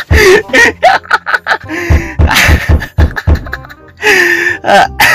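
A cartoon voice laughing and vocalising over a fast bass beat, about three beats a second; the beat stops about three and a half seconds in.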